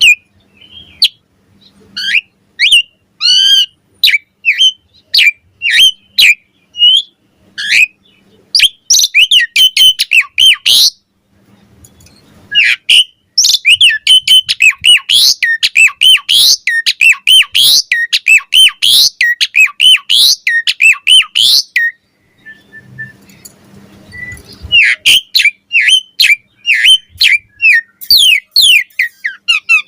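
Asian pied starling (jalak suren) singing vigorously: fast, loud strings of sharp whistles, chirps and harsh chatter. The song breaks off twice for a second or two.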